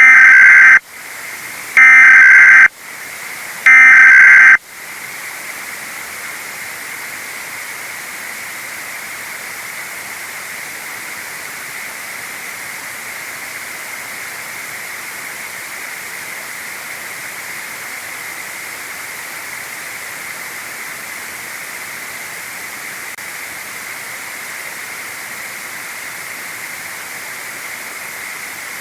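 Three loud EAS SAME digital data bursts, the end-of-message code sent three times about two seconds apart, each a harsh two-tone warble lasting under a second. After the third burst, a steady static hiss carries on.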